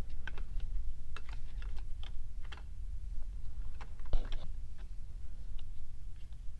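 Scattered light clicks and taps of hands handling a wiring harness and plastic dash trim, with a sharper knock about four seconds in, over a low steady rumble.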